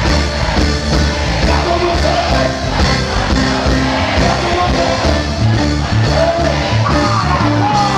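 Live reggae dancehall performance through a concert PA: a male vocalist singing into a handheld microphone over a loud backing with a heavy, rhythmic bass line.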